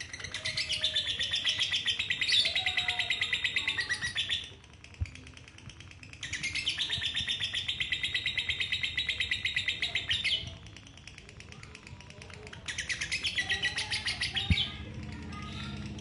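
Female lovebird's 'ngekek': a long, rapid rattling chatter given in three bouts, the first two about four seconds each and the last about two, with short pauses between.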